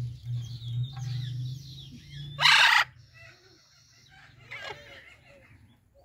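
Parrots calling: light chirps and trills, then one very loud, harsh squawk lasting about half a second midway through, followed by softer chirps. A low steady hum sits under the first half.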